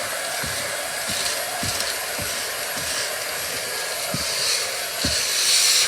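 Hoover vacuum cleaner running steadily while it sucks sand off a car floor mat, with a louder surge of hiss near the end.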